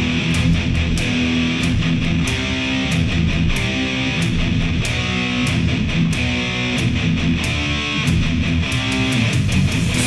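Heavy metal band intro recording: distorted electric guitars playing a riff over bass guitar and drums, with steady percussive hits throughout.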